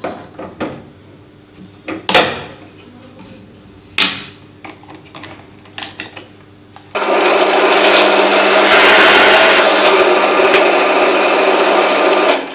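Bench drill press with a thin bit working into a small piece of wood. In the first half there are several short bursts as the bit spots a centre mark. Then about five seconds of loud, steady drilling noise over the motor's hum, which stops just before the end.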